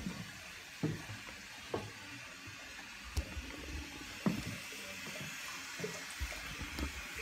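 Footsteps on wooden floorboards: a few soft thumps about a second apart over a faint steady hiss.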